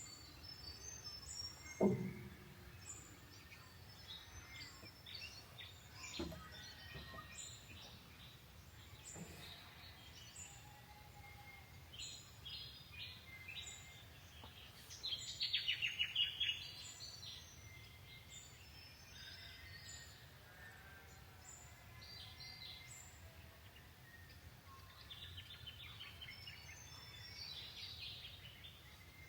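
Birds chirping and calling over a steady outdoor background, with a quick run of chattering calls about halfway through. A short low sound about two seconds in stands out above the birdsong.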